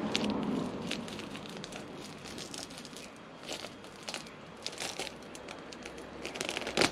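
Protective plastic film being peeled off a new tinted motorcycle fly screen, crinkling and crackling irregularly, with a louder burst of crackles near the end.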